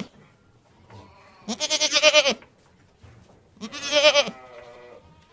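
Goats bleating: two wavering bleats, each under a second long and about two seconds apart, with the tail of another just as it begins.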